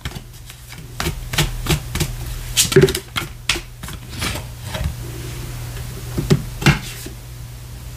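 Tarot cards being handled and laid out on a table: an irregular string of light taps and clicks as cards are drawn from the deck and set down, over a steady low hum.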